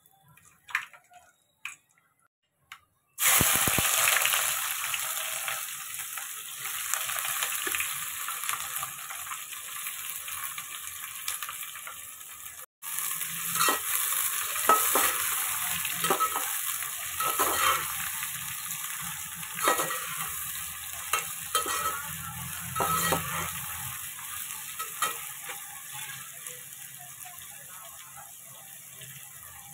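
Hot oil sizzling as sliced onions fry in a metal pot, with a metal spatula scraping and stirring them. The sizzle breaks out suddenly about three seconds in, with separate scrapes of the spatula through the middle, and eases off toward the end.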